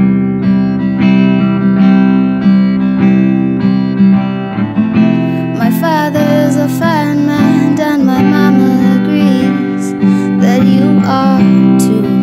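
Acoustic guitar playing a steady strummed accompaniment. About five seconds in, a woman's singing voice with gliding notes comes in over it.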